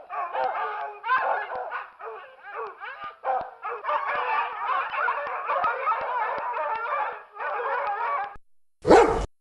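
Dogs yapping, barking and whining in quick, overlapping high calls. The calls break off shortly before the end, and after a brief gap there is one short, louder bark.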